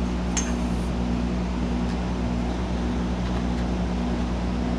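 A steady low machine hum with an even rushing noise over it, and a light click about half a second in as the harness webbing and its metal buckle are handled.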